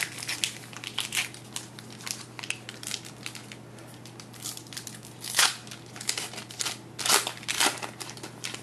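Wrapper of a sealed trading card pack crinkling and crackling as it is handled and ripped open by hand, with louder crackles about five seconds in and again around seven seconds.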